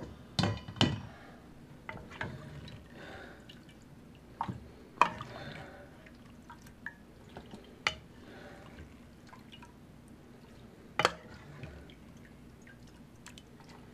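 A plastic ladle scooping bones and broth out of a slow cooker crock, with several sharp knocks of the ladle against the crock and strainer, and broth dripping and splashing.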